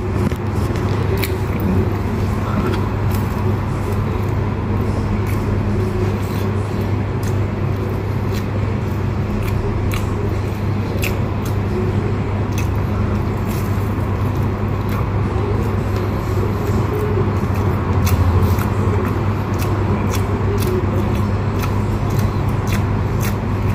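Close-up chewing of crusty sesame-topped Turkish bread, with many scattered short crackly clicks from the crust and mouth, over a steady low hum.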